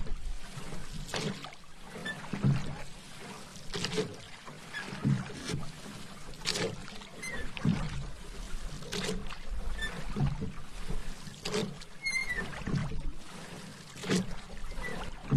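Paddle strokes in calm water from a small paddled boat: a regular splashing swish about every 1.3 seconds as the blade dips and pulls through.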